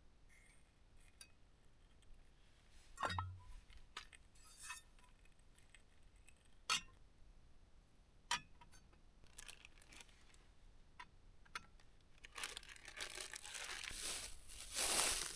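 Camp kitchen gear being handled: scattered clicks, knocks and clinks, then a longer stretch of crinkling and rustling that builds over the last few seconds.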